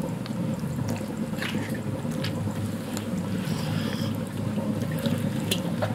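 Wet squelching and scattered small clicks of hands working a thick spice marinade into a whole crocodile in a steel wok, over a steady low hum.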